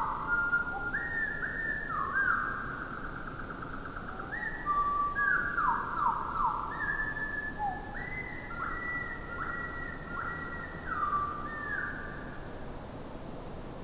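Bird calls and song played back four times slower, so they come out as low, drawn-out whistled notes, many overlapping, several sliding into pitch, dying away near the end.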